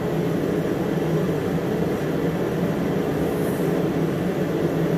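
A steady mechanical drone with a low hum and an even rush.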